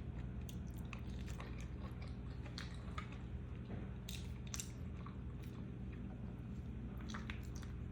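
Close-miked chewing of a mouthful of mac and cheese, with many small wet mouth clicks scattered throughout over a steady low hum.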